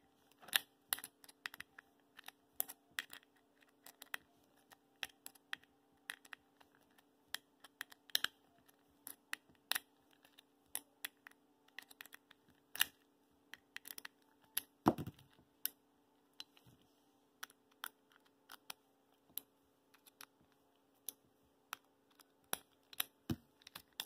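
Small screwdriver unscrewing the screws from a 3x3 speedcube's plastic core: irregular small sharp clicks, with one louder knock about 15 seconds in.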